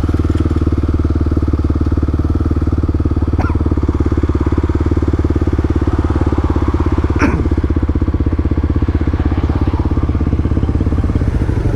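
Motorcycle engine running at a steady speed, a constant, even pulsing beat with no revving.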